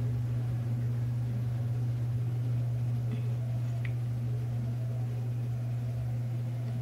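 A steady low hum, with two faint small clicks partway through.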